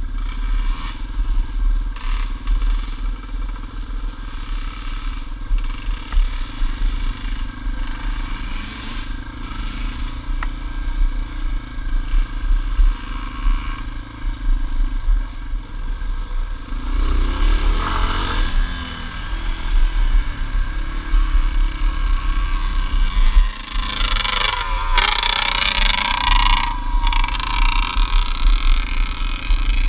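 Yamaha dirt bike engine running under way, heard from a camera mounted on the bike, with wind rush on the microphone. The engine revs up and back down about halfway through, and a loud rush of noise comes in a few seconds before the end.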